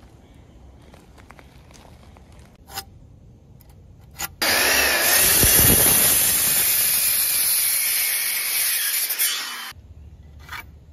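A few faint knocks, then about four seconds in a Chicago Electric circular saw starts and cuts across a 2x6 deck board for about five seconds before stopping.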